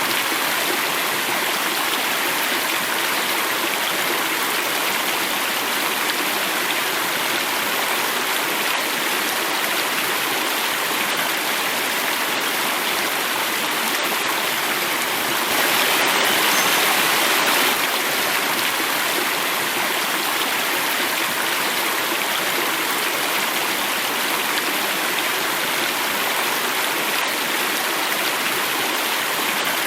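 Water running and falling in a stream, a steady rushing that swells a little louder for about two seconds midway.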